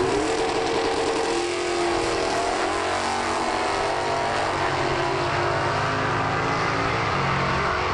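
Two Super Sedan drag-racing cars accelerating hard down the strip from the start line, engines revving at full throttle. The engine note drops about a second and a half in, as at a gear change.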